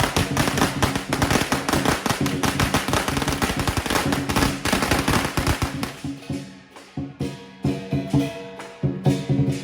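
A string of firecrackers going off in a rapid, dense crackle that dies away about six seconds in. Lion dance drumming and percussion play through it, then carry on as separate ringing strikes.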